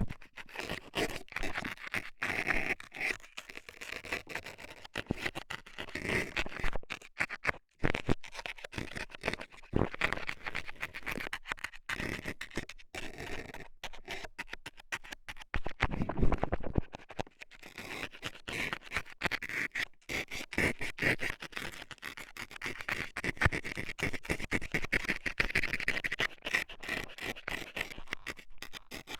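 Metal dental scaler scratching and scraping in an ear in quick, irregular strokes, close up.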